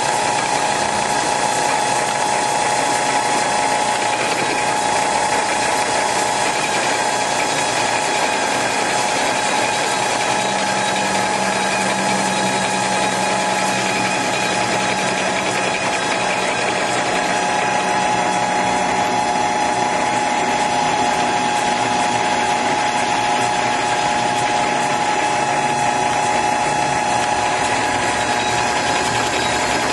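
Metal lathe running steadily as it turns a piece of steel railroad rail in its chuck: a continuous mechanical gear noise with a steady whine through it.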